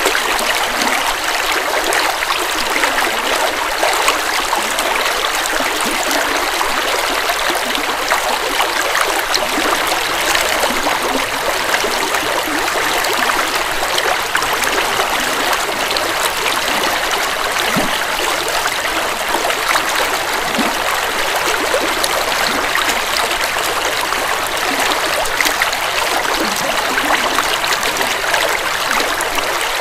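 Forest river running over rocks: a steady, loud rushing with constant trickling and splashing, the sound sitting mostly in the upper range with little low rumble.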